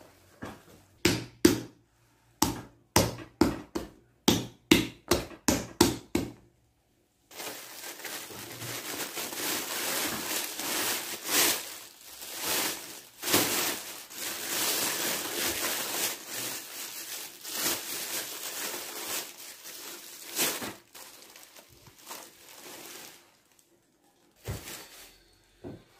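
Soft qoğal dough being slapped and knocked in a plastic bowl, about a dozen sharp slaps at two to three a second. Then a clear plastic bag crinkles steadily while it is pulled and tucked over the bowl, with a couple of thumps near the end.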